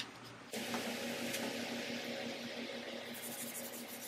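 A machine switches on abruptly about half a second in and runs with a steady, evenly pulsing hum. Near the end come faint rubbing strokes of a gray Scotch-Brite pad scuffing primed sheet metal by hand.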